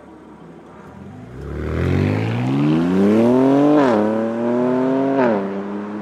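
BMW G80 M3's twin-turbo straight-six breathing through an Fi Exhaust valvetronic catback with the valves open, launching hard from idle. The engine note climbs steadily and drops sharply at two quick upshifts, the first a little under four seconds in and the second about a second and a half later.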